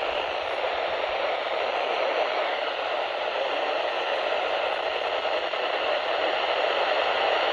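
Steady hiss of radio static from a NOAA Weather Radio receiver, with no broadcast voice coming through.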